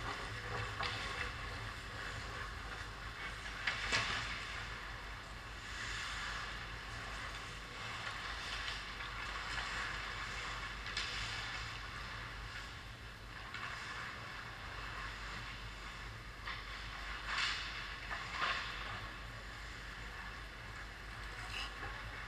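Ice hockey rink sound: a steady hiss of skate blades on the ice, with a few short, louder scrapes or knocks about four seconds in and twice near the end, over a constant low hum.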